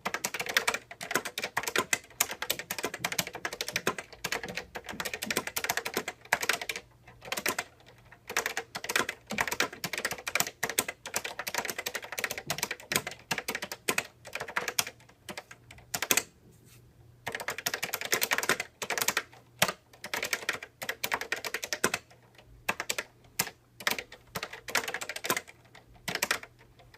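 Typing on a 1983 Epson QX-10 keyboard with Fujitsu second-generation leaf-spring linear switches, whose keystrokes are dampened on the downstroke by hard rubber stoppers. Rapid runs of key clacks, with brief pauses now and then.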